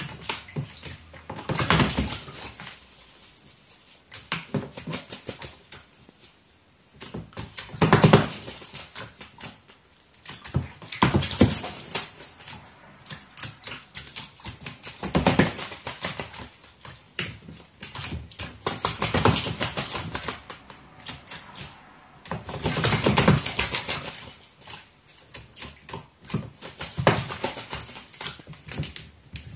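Crow bathing in a shallow plastic tray of water: about seven bouts of splashing and wing-flapping, each a second or two long, a few seconds apart, with rapid spattering of water drops.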